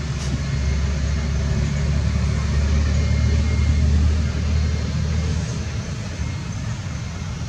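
Low, steady engine rumble of a vehicle running close by. It is strongest for the first five seconds or so, then drops away.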